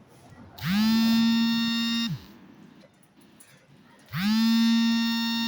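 Two long horn blasts, each about one and a half seconds, the second starting about two seconds after the first ends; each slides quickly up to a steady pitch and drops away at its end.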